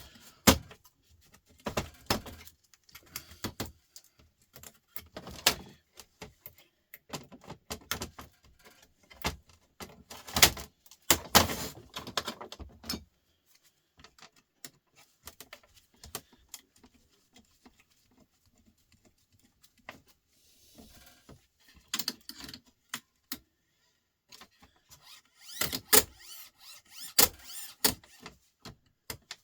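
Irregular clicking, knocking and clattering of hand tools against the metal and plastic parts of a TV/DVD unit being taken apart, in busy clusters with a quieter stretch in the middle.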